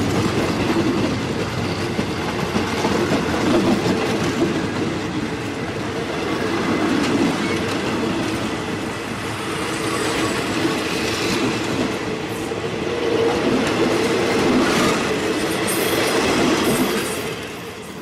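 Passenger train rolling along the rails with a steady rumble and brief high squeals in the second half; the sound falls away sharply about a second before the end.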